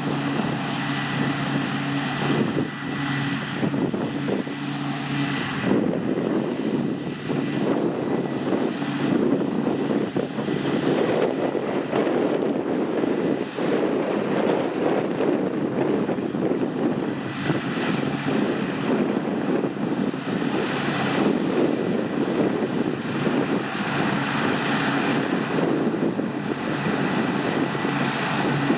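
Large diesel harvest machinery running steadily under load, with a steady high whine over the engine note; about six seconds in, the low engine tone gives way to a rougher, noisier sound. Wind buffets the microphone.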